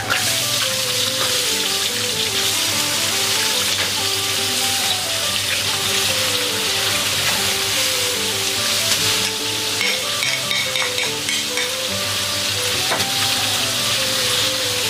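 Hot oil sizzling steadily in a wok as water spinach stems are dropped in and stir-fried, with background music underneath.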